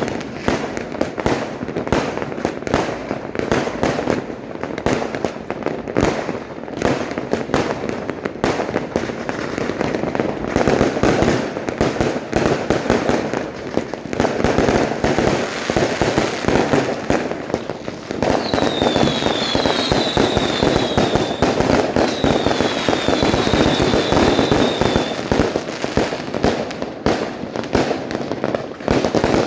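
Dense, continuous barrage of fireworks and firecrackers, with many bangs going off close together and overlapping. About two-thirds of the way through there are two short runs of high whistles.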